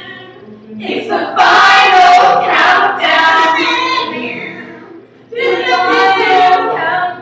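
Several women singing together in a loud group burst, with a brief break around five seconds before they sing again.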